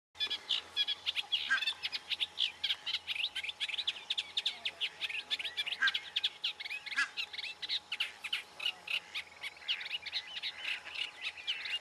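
Reed warbler singing: a fast, unbroken chatter of short notes repeated many times a second.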